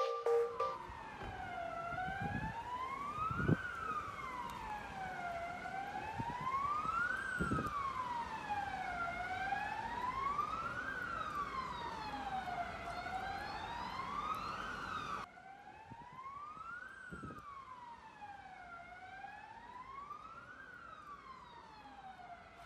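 Emergency vehicle siren wailing, its pitch sweeping slowly up and down about every four seconds. The sound becomes abruptly quieter about fifteen seconds in.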